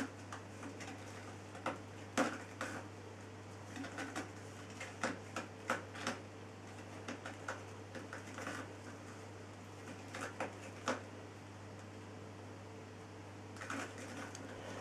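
Soft, irregular clicks and rustles from kittens nursing and shifting on a blanket, over a steady low hum. The clicks come thickest in the first two-thirds and thin out after about eleven seconds.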